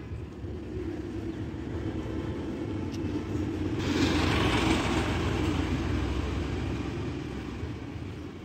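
Road vehicle going by: a steady low engine rumble that swells louder about four seconds in, then slowly fades.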